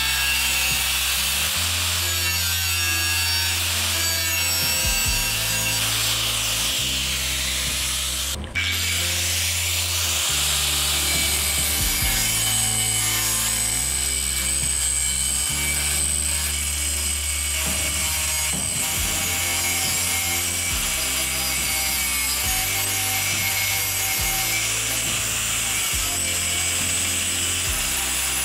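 Makita angle grinder cutting notches into a steel angle bar with a cut-off disc, a steady harsh cutting noise. Background music with a stepping bassline plays throughout, and the sound drops out briefly about eight and a half seconds in.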